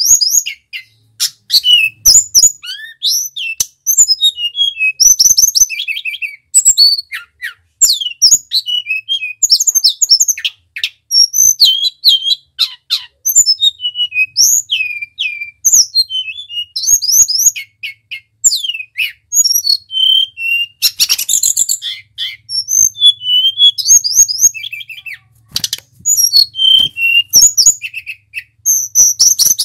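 Male hill blue flycatcher singing continuously in fast, varied phrases of high whistles, sweeping notes and quick trills, separated by short gaps, with a few sharp clicks in between.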